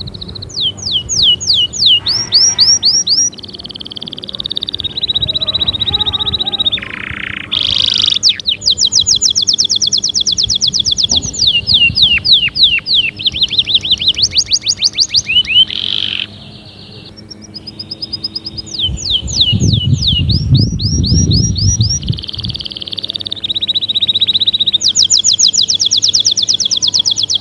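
Domestic canary singing a loud, continuous song: fast trills of rapidly repeated sweeping notes alternating with steady buzzing rolls, switching from one phrase to the next every second or two. A low rumbling noise comes in briefly about two-thirds of the way through.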